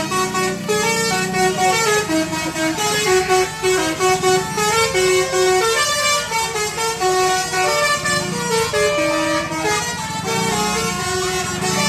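Indonesian bus's basuri telolet musical air horn playing a fast melody of short notes, with the bus's engine running underneath.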